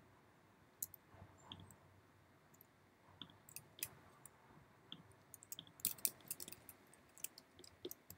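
Faint, irregular clicks of a computer mouse and keyboard, a few a second, with a quick run of clicks around six seconds in.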